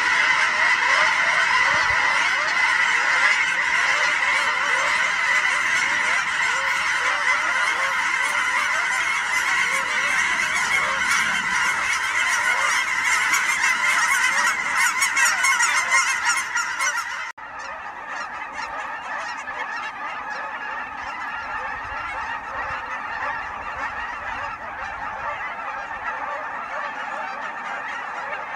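A large flock of geese honking in a dense, continuous chorus. About two-thirds of the way through it cuts suddenly to a quieter chorus of goose calls.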